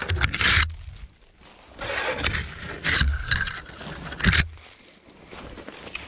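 Bursts of scraping and rustling as brush and leaf litter are pushed through on foot, four in a row with the sharpest near the end.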